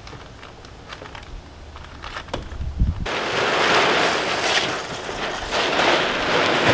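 A plastic tarp being pulled off a pop-up camper, rustling and crinkling loudly from about three seconds in, after a few light clicks and knocks.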